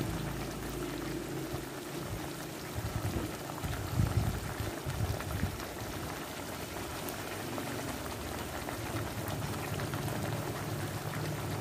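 Fish-sauce glaze bubbling and sizzling steadily around fried eggs in a frying pan, with a few soft knocks around the middle.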